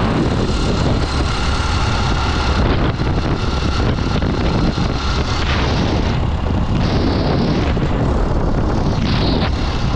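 Motorcycle riding along a paved road: steady wind buffeting the microphone over the bike's engine and tyre noise.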